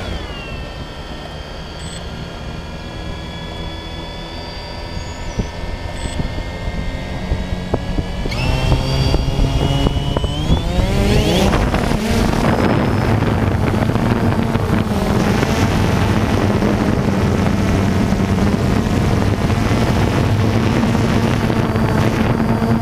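DJI Phantom 2 quadcopter's electric motors and propellers whining steadily while the drone sits on the grass. About ten seconds in they spin up with a rising pitch, then settle into a louder, steady buzz as the drone lifts off and flies.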